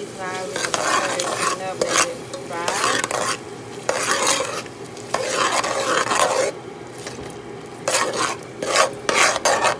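A spoon stirring kidney beans and tomato paste frying in oil in a pan: irregular scraping strokes with short pauses, over a steady sizzle.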